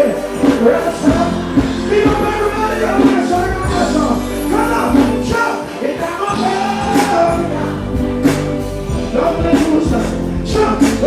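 Live music: a male singer singing into a microphone over backing music with a steady beat.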